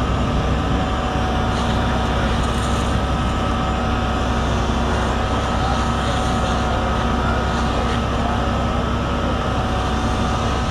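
Steady drone of a fire engine running its pump to feed charged hoselines, with the rushing noise of the water streams. A few constant tones run through it with no change in speed.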